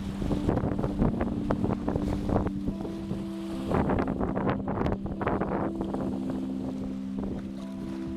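Sea waves splashing irregularly at the shore with wind buffeting the microphone, over soft background music of slow held chords that change every few seconds.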